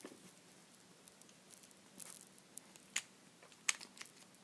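Faint handling noise of a plastic mechanical pencil as its end cap is taken off, with a few small sharp clicks.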